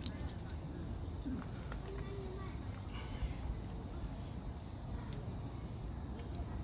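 Crickets trilling in one unbroken, steady high-pitched drone.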